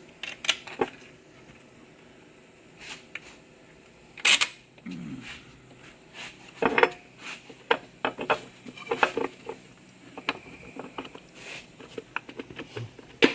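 Metal internal parts of a 4L60E automatic transmission clinking and knocking against each other and the case as they are lifted out by hand, with a louder clatter about four seconds in and a busy run of small clicks later on.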